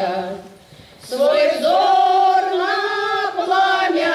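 Women's folk choir singing a Russian song a cappella. A phrase ends at the start, there is a breath pause of under a second, and the voices come back in about a second in on long drawn-out notes.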